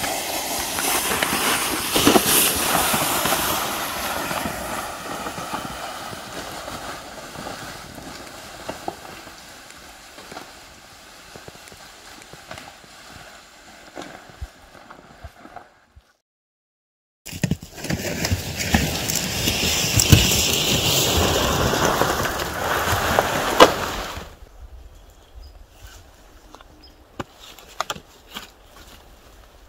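Crunching and scraping of footsteps and a towed gear sled on snow, in two long loud stretches broken by a second of silence; then quieter scattered knocks and clicks near the end.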